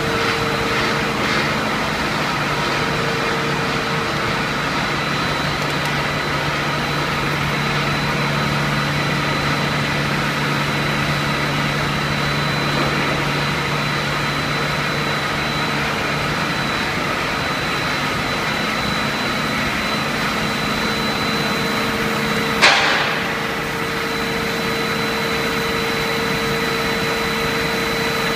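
HDPE raffia tape stretching line running: a steady machine drone with a constant high tone and lower hum. About 23 seconds in, a single sharp knock stands out above it.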